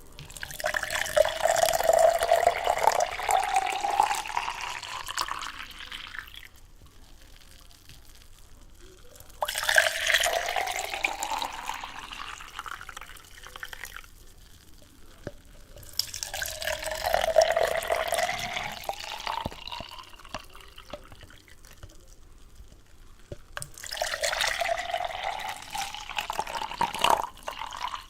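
Water poured into a container four times, each pour a few seconds long with a tone that rises in pitch as the vessel fills, with short pauses between pours.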